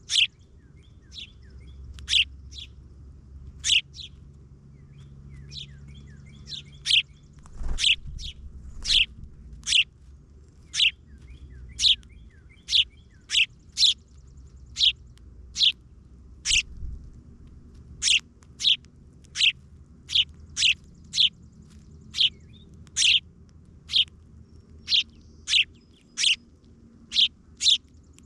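A small songbird repeating short, sharp chirps, each dropping quickly in pitch. They come about once a second, a little faster in the second half.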